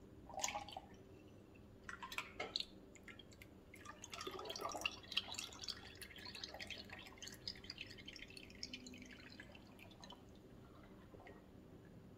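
Liquid soap being scooped from a stainless steel stockpot with a plastic measuring cup and poured into a plastic funnel, faint. A few light plastic knocks come first, then a trickling, splashing pour from about four seconds in that thins out over the following seconds.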